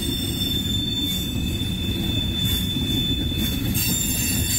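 Freight train of tank cars rolling past: a steady low rumble of steel wheels on the rails, with a thin, steady high wheel squeal over it and a few brief hissing screeches near the end.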